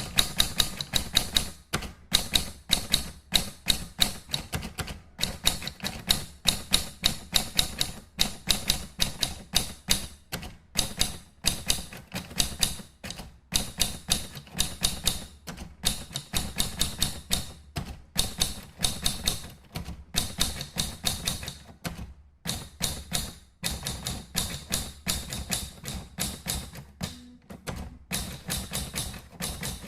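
Rapid typing: key strokes clicking several times a second in quick runs, with brief pauses between runs.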